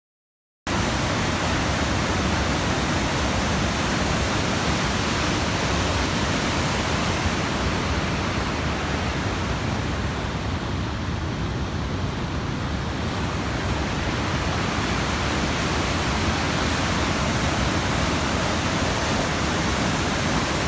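Waterfall pouring: a loud, steady, dense rush of falling water, cutting in abruptly less than a second in after a moment of dead silence.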